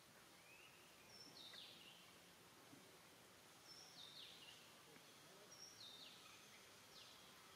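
Faint bird calls over a quiet background hiss: a short call that steps down in pitch, repeated about five times, with a few softer rising chirps between.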